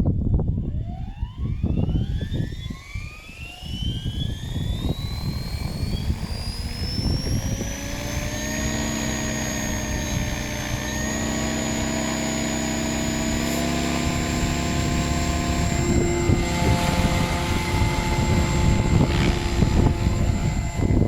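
Goblin 580 electric RC helicopter spooling up: its motor and rotor whine rises in pitch over the first several seconds, then holds steady at flying head speed, set to 2150 rpm. Gusty wind buffets the microphone throughout.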